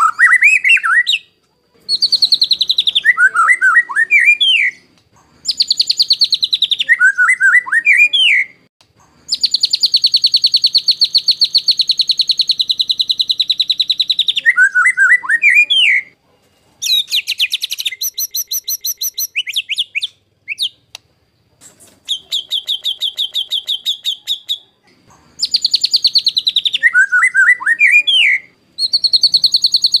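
White-rumped shama (murai batu) singing loud song phrases with short gaps between them: long rapid trills of rough, rattling notes held on one high pitch, several ending in a quick lower warble. This is the coarse 'tembakan kasar' style of shama song.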